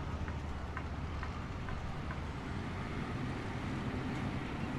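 Steady low engine-like rumble of heavy machinery, with a few faint light clicks over the first two seconds.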